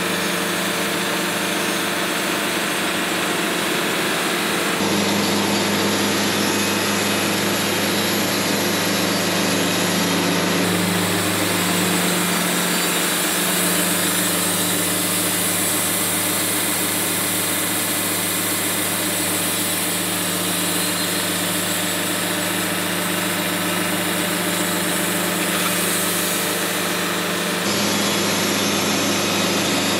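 Wood-Mizer LT70 Super Wide bandsaw mill running steadily, its band blade sawing through a paulownia log.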